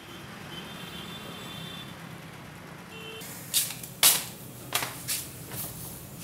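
Steady low background hum, then from about three seconds in a series of about six sharp clicks and knocks, the loudest about four seconds in.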